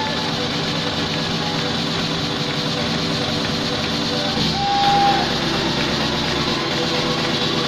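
Audience applauding steadily over background music, with a short whistle about four and a half seconds in.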